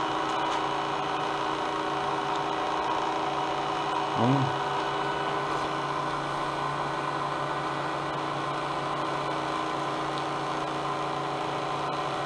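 Electric cotton candy machine running, its motor spinning the heated spinner head with a steady hum and whine.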